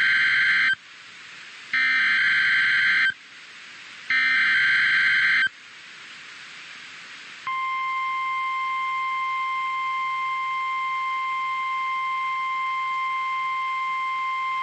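Emergency Alert System alert on NOAA Weather Radio: three bursts of SAME digital header data, each a harsh warbling electronic screech of about a second and a half, then after a short pause the steady single-pitched warning alarm tone starts about 7.5 seconds in. It announces a new severe thunderstorm warning.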